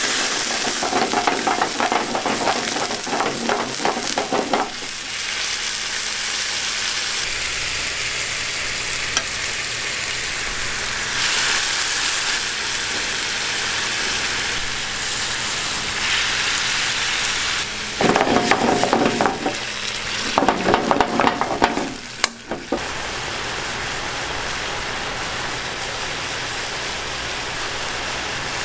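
Pasta sauce sizzling and bubbling in a pan on a gas burner, a steady hiss, with stretches of stirring and pan clatter for the first few seconds and twice more after the middle.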